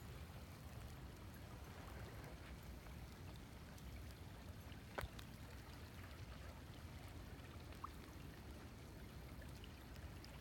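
Faint outdoor ambience by a wide river: a steady low rumble of noise, broken by one sharp click about halfway through and a brief high note near the end.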